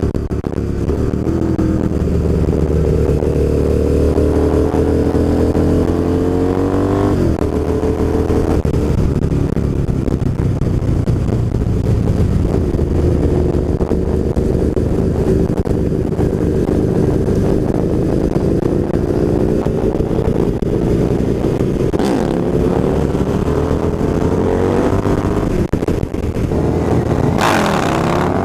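Motorcycle engine under way, its revs climbing and dropping back several times as the bike accelerates and shifts, with steady wind rush over the microphone.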